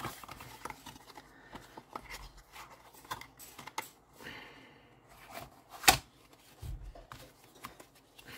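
A deck of tarot or oracle cards being handled and shuffled in the hands: a scatter of small papery clicks and short rustles, with one sharper tap nearly six seconds in.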